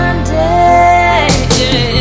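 Background music: a song, with a voice holding a long note over a steady bass line.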